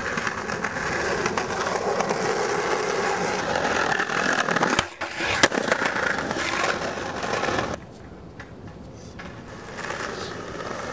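Skateboard wheels rolling over pavement, with one sharp clack about five and a half seconds in; the rolling grows quieter for the last few seconds.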